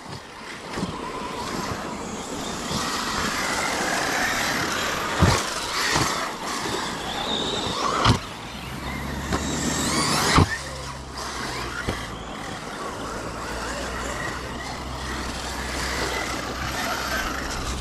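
Several electric RC cars racing: their motors whine, rising and falling with the throttle, with a few sharp knocks as they hit things or land. One whine rises steeply about ten seconds in.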